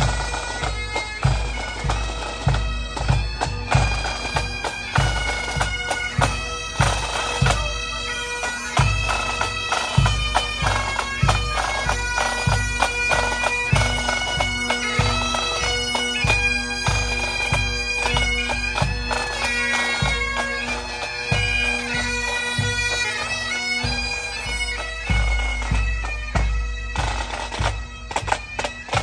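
Pipe band playing: bagpipes with a steady drone under the melody, and drums beating time.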